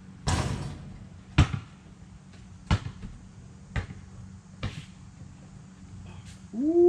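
A series of five sharp knocks or thumps, roughly a second apart, the first with a long ringing tail. Near the end a held, pitched tone begins, rising at its start and then holding steady.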